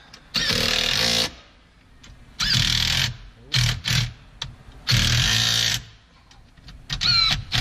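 Cordless drill-driver running in several short bursts, each under a second, some starting with a quick rise in motor pitch, as it drives screws in the truck's lower dash panel.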